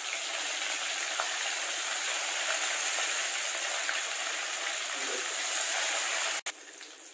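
Hot oil sizzling steadily in a wok as fresh mint leaves fry with curry leaves and cumin seeds. About six seconds in the sizzle cuts off abruptly, then comes back fainter.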